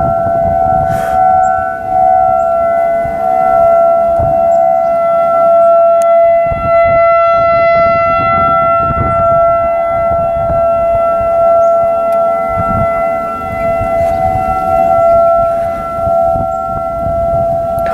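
Outdoor tornado sirens sounding loud and steady during a scheduled monthly test. They hold an unwavering tone at two close pitches rather than rising and falling.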